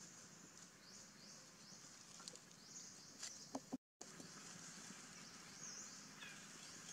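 Quiet forest ambience: a faint high insect drone that pulses over and over, with a few soft clicks and rustles from the leaf litter and one short chirp near the end. The sound cuts out for a moment just past the middle.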